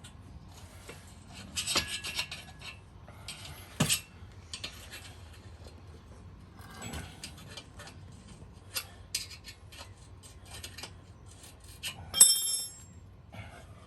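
Wrenching on a recumbent tandem trike's metal frame and seat mounts: scattered clicks, clinks and scrapes of tools and parts, with one loud ringing metal clank near the end.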